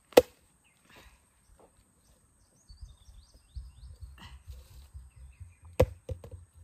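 Two sharp chopping strikes, one just after the start and one near the end, the second followed by a few lighter knocks, with a low rumble underneath.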